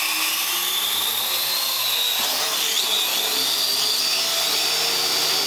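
Parrot AR.Drone quadcopter's four electric motors and propellers running at flight speed as it takes off and hovers, a steady whirring with a high whine that wavers in pitch as the rotor speeds adjust.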